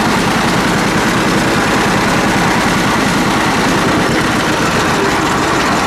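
Old John Deere two-cylinder tractor engine running steadily in gear while the tractor is driven, with a fast, even beat of firing pulses.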